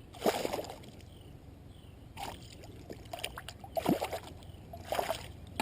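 Water splashing in about five short bursts beside a kayak, typical of a hooked bass thrashing at the surface as it is brought in.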